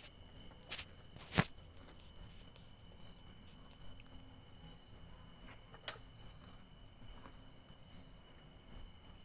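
Cricket chirping, short high-pitched chirps repeating evenly about once every 0.8 seconds. A few sharp knocks cut in, the loudest about one and a half seconds in.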